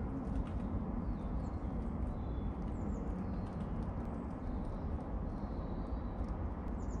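Outdoor rooftop ambience: a steady low rumble, with faint high chirps of small birds here and there and a short falling trill near the end. A few light taps come through, from pigeons pecking at seed.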